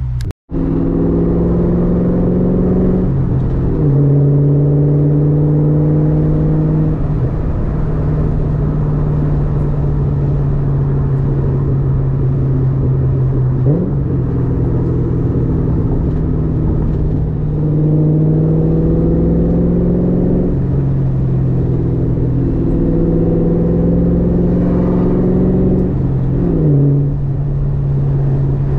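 Car engine running steadily under way, its note dipping briefly in pitch about five times. The sound cuts out for an instant just after the start.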